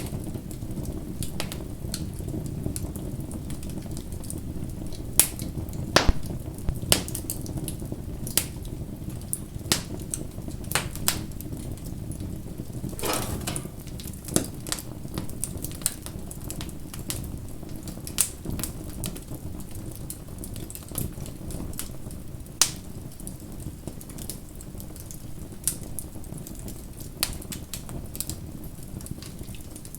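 Wood fire burning with a low steady rumble of flames and irregular crackles and pops of burning wood, a few sharper pops standing out, around five to seven seconds in and again past twenty seconds.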